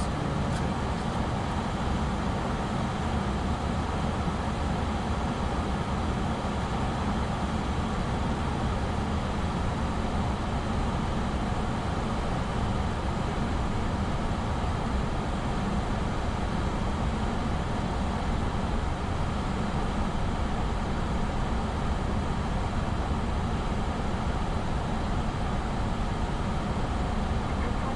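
Steady cockpit noise on an Airbus A340 flight deck: an even, unchanging rumble and hiss.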